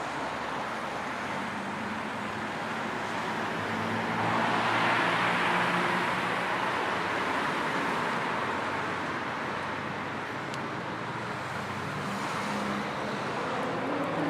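Road traffic: a steady wash of tyre and engine noise from passing vehicles, swelling as a vehicle goes by about four to six seconds in. A rising engine note comes in near the end.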